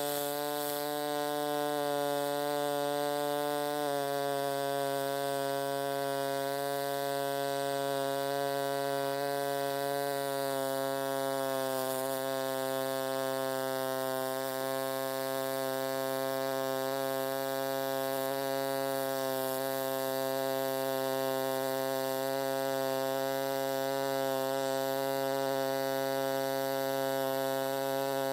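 Pulsed MIG welding arc from an HTP Pro Pulse 220 MTS running a bead on aluminum with 4043 wire, giving a steady buzzing hum. The pitch steps slightly about four seconds in and again around ten to twelve seconds in.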